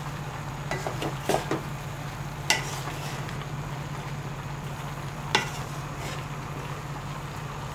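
A wooden spatula stirs and tosses vegetables in a stainless steel pot over a faint sizzle, knocking sharply against the pot a handful of times. A steady low hum runs underneath.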